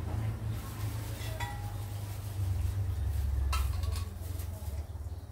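Bowl clinking against the side of a metal wok while liquid is poured into the soup, with a sharper knock about three and a half seconds in, over a steady low hum.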